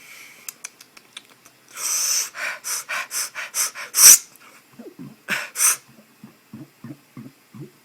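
A man's quick run of about seven breathy gasps, then one sharp, loud gasp about four seconds in and two more gasps a second later, as he gulps air to bring up a burp.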